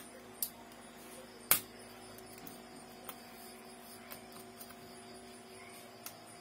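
A few sharp clicks and taps from handling the laptop as it is being taken apart, the loudest about a second and a half in, over a steady electrical hum.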